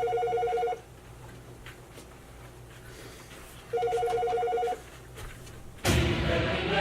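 Telephone ringing twice, each ring a warbling tone of about a second, roughly four seconds apart. A louder passage, apparently music, comes in near the end.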